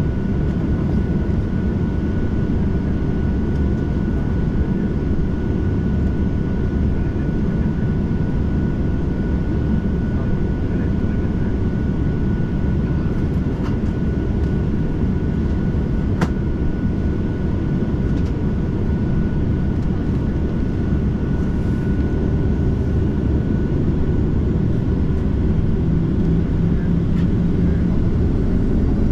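Cabin noise inside a Boeing 737-800 on the ground before takeoff: a steady low rumble from its CFM56 engines running evenly, with a thin steady whine above it. A single click sounds about halfway through.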